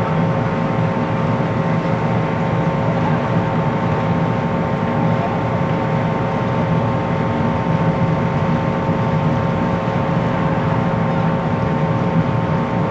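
Delta II rocket climbing far off, heard on the ground as a steady, even low rumble, with a faint steady hum over it.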